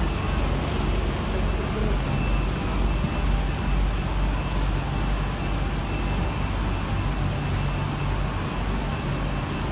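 Steady engine rumble with a faint high whine, typical of the airside bus and vehicles idling at an airport terminal kerb, with faint voices of passengers.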